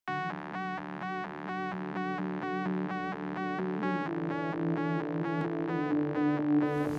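Intro music on a synthesizer: a bright note pulsing about twice a second over steady low held notes.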